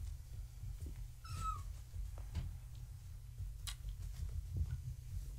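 A four-week-old kitten gives one short, high mew that falls in pitch, about a second and a half in. A sharp click comes near the end, over a steady low rumble with small knocks.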